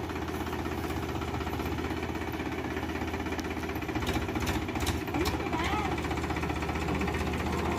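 Diesel engine of a Powertrac Euro 50 tractor running steadily at low speed, with an even low throb.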